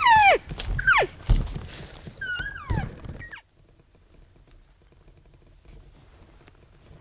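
Several loud, squealing cow-elk mews, each sliding steeply down in pitch, with low thuds between them. After about three and a half seconds the sound cuts off abruptly and only a faint outdoor background is left.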